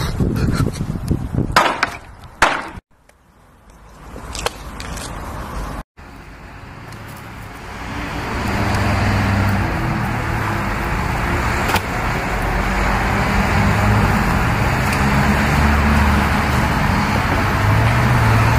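A couple of sharp knocks in the first few seconds, then a car engine running steadily for the rest, with a low hum and a constant hiss.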